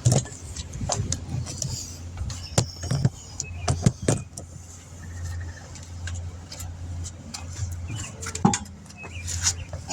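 Scattered metal clinks and knocks of tools and hardware as a wheel is being remounted, over a steady low hum.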